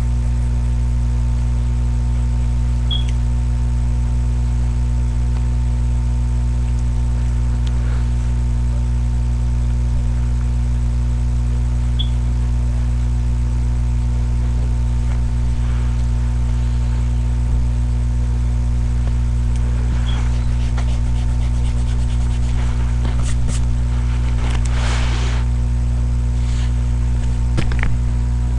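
Loud, steady electrical hum and buzz, a stack of unchanging low tones of the kind a webcam microphone picks up. Faint rustling or scratching comes in toward the end.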